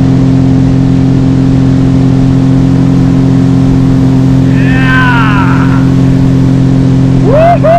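Boat outboard motor running at a steady cruising speed with the boat underway, a constant loud drone. A bird calls over it twice, briefly around five seconds in and again near the end.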